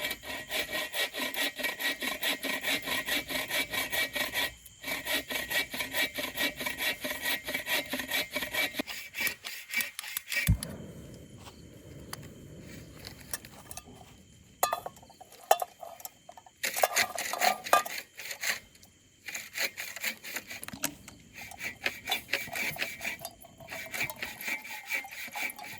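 Fast back-and-forth rasping strokes of a hand tool on a firm material, about three strokes a second, with a faint metallic ring. They stop with a single knock about ten seconds in, then resume in short spells.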